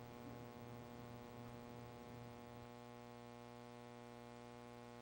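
Faint, steady electrical hum: a buzz with many evenly spaced overtones and no speech. A low part of it drops away a little past halfway.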